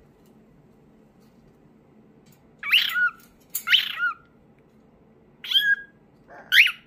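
Pet parrots calling: four short, high-pitched calls in two pairs, each sweeping quickly up and down in pitch, starting about two and a half seconds in.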